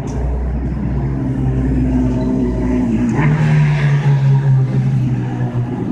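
Street traffic: a motor vehicle's engine running close by with a low rumble. Its note steps up and grows louder about three seconds in.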